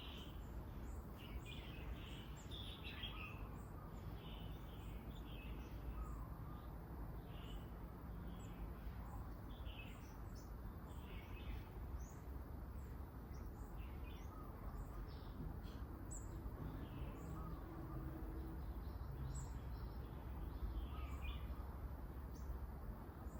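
Small birds chirping: many short, quick calls one after another, some overlapping, over a steady low background rumble.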